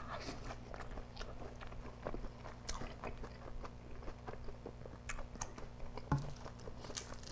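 Close-miked chewing of a mouthful of mutton vindaloo curry: small irregular wet clicks and smacks of the mouth, over a faint steady low hum.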